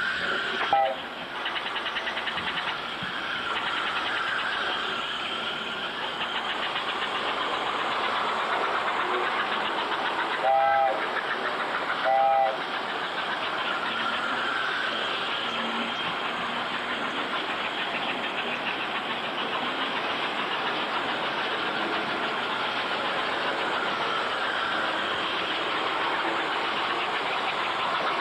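American Flyer S-gauge toy train running steadily around the track, its motor and wheels giving a continuous rattling hum, with the train's whistle blowing twice in short toots about ten and twelve seconds in.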